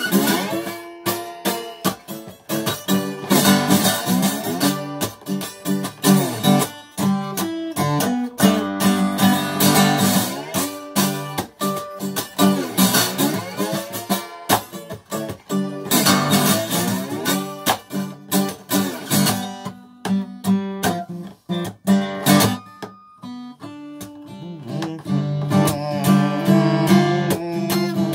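Acoustic guitar strummed in a steady rhythm, an instrumental passage between sung verses. The strumming thins to a few separate notes about two-thirds of the way through, then picks up again.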